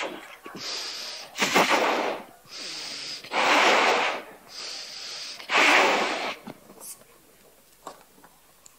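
A yellow rubber balloon being blown up by mouth: three long, loud breaths into it, each after a quicker, quieter intake of air, stopping about six and a half seconds in. A few faint clicks follow near the end.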